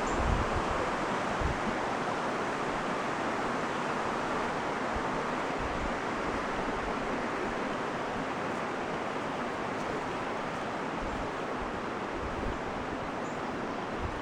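Steady rushing of flowing river water, an even hiss with no change in level, with a few low thumps on the microphone.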